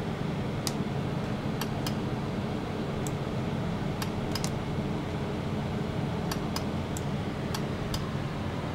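A steady low machine hum under a faint hiss, with scattered sharp ticks at irregular intervals.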